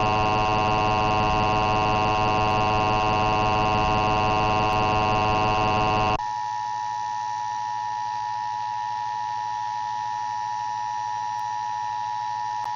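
Emergency Alert System test over FM radio: a harsh, raspy electronic buzzer sounds steadily, then about six seconds in it cuts abruptly to the steady, quieter EAS two-tone attention signal.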